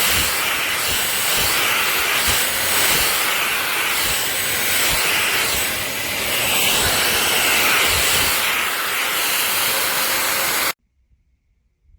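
Kenmore DS1020 16V cordless stick vacuum running steadily and loudly, then cutting off abruptly near the end.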